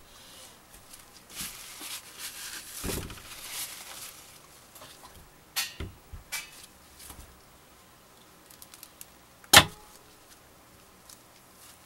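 Soap loaf being cut on a wooden wire soap cutter: a scraping, sliding stretch in the first few seconds as the loaf and cutter are worked, a few light knocks, then one sharp loud knock about nine and a half seconds in.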